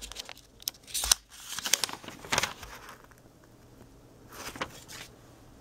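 Paper leaflet being unfolded and handled: a few sharp crinkles and rustles over the first two and a half seconds, then a softer rustle near the end.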